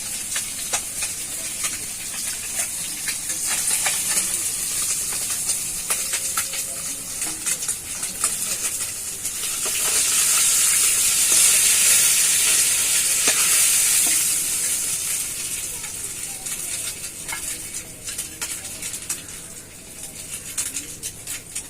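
Parshe fish sizzling in hot oil in a kadai, with a spatula clicking and scraping against the pan as the fried fish are lifted out. The sizzle swells louder about ten seconds in and dies down near the end.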